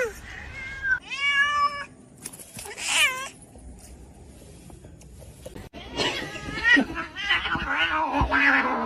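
Cat meowing: a few separate meows in the first three seconds, then a longer wavering yowl from about six seconds to the end.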